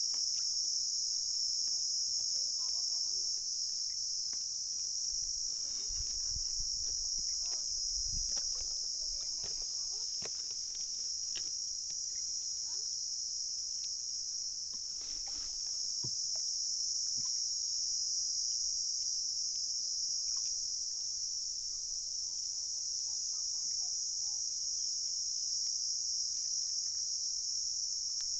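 Steady, high-pitched drone of insects, loudest throughout, with faint scattered clicks and a few soft knocks from a nylon fishing net being hauled in and sorted on the wooden planks of a boat.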